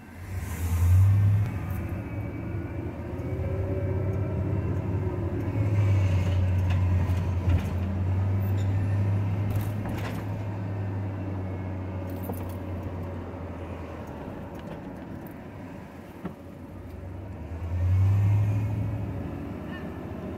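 Engine and road noise of a moving vehicle heard from inside its cab: a steady low hum with tyre rumble, swelling as it speeds up about a second in and again near the end.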